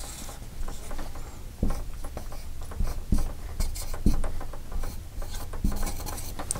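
Dry-erase marker writing on a whiteboard: short scratchy strokes and taps of the tip against the board, with a few soft knocks.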